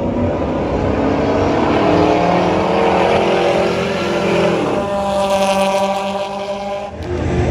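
A vehicle engine running and accelerating. Its pitch rises, drops back about four and a half seconds in, then holds steady before cutting off abruptly near the end.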